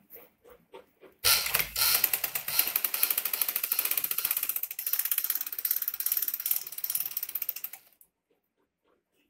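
Sewing machine stitching a straight seam, a fast, even mechanical clatter of stitches. It starts about a second in and stops near the end.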